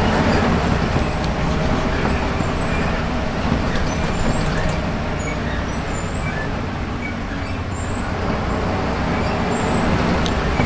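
Volvo B7RLE bus's rear-mounted 7-litre six-cylinder diesel engine and driveline running steadily under way, heard from the back of the saloon, with a faint whine over the engine and road noise. It eases slightly in the middle and builds again near the end.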